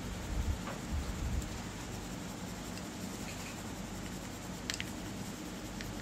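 Red coloured pencil shading on paper, a soft steady scratching, with a few low knocks in the first second and a half.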